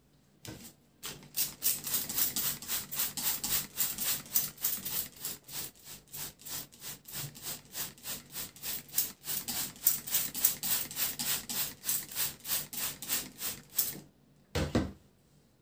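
Plastic trigger spray bottle being squeezed over and over, about three to four short hissing sprays a second, misting liquid onto a sponge cake layer to soak it. A single dull thump near the end.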